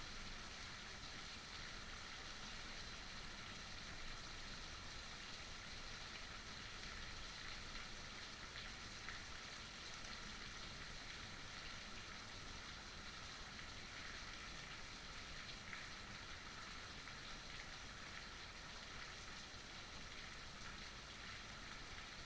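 Heavy rain falling steadily, an even hiss of drops without a break.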